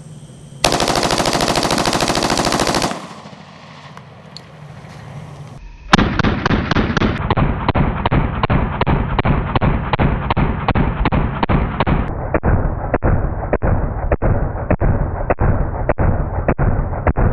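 VZ-58 7.62×39 rifle fired fully automatic: one dense burst of about two seconds. After a short pause comes a long string of evenly spaced shots, about two to three a second, which grows duller in two steps.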